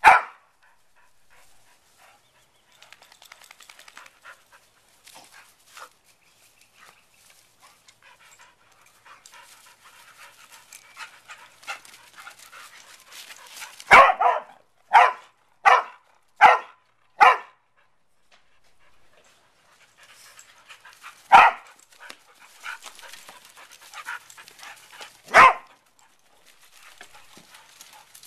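Two dogs play-wrestling, panting, with sharp single barks: one at the start, a quick run of five about a second apart midway, and two more spaced apart near the end.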